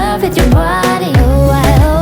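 Background pop music with a steady beat and a sung melody line.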